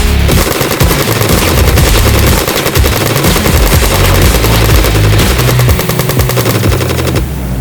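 Rapid automatic gunfire sound effect: a continuous stream of machine-gun shots.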